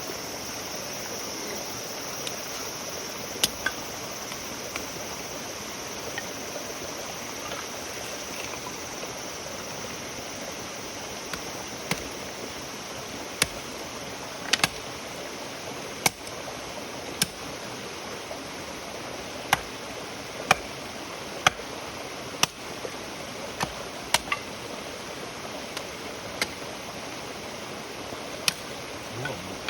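Wood campfire burning: a steady hiss with sharp, irregular pops and cracks, about fifteen over the half minute.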